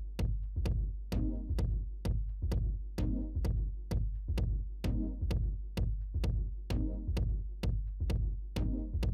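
Electronic background music with a steady drum-machine beat, about two beats a second, over a deep bass.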